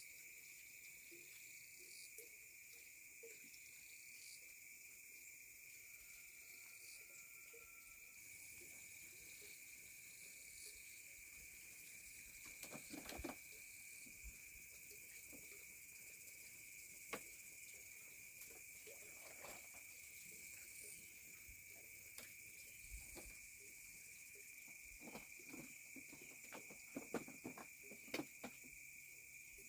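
Faint, steady high-pitched insect drone, with scattered light clicks and knocks that come more often near the end.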